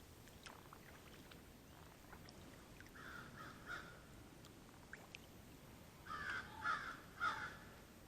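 Crows cawing: three caws about three seconds in, then three louder caws near the end.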